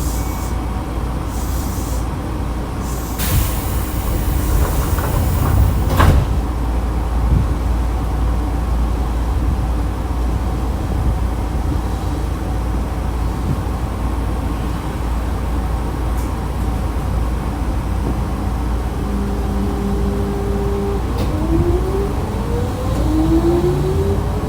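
Commuter train standing at a station: a burst of compressed-air hiss from the door engines ends in a knock as the doors shut. Near the end the traction motors start up with rising whines as the train pulls away.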